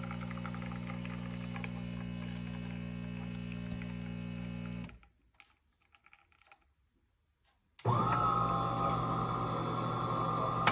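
De'Longhi Eletta Explore bean-to-cup coffee machine at work: a steady pump hum cuts off about halfway through, a few seconds of near silence with faint clicks follow, then a louder motor with a steady whine starts up near the end.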